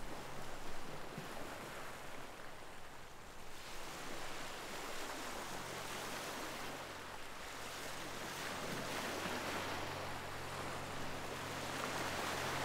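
Ocean surf: a continuous rush of waves breaking and washing ashore, swelling louder and easing off every few seconds.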